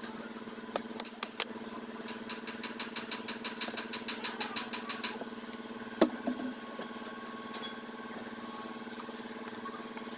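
An engine idling steadily at an unchanging pitch. Over it, a quick run of light clicks a few seconds in and a single sharp knock about six seconds in.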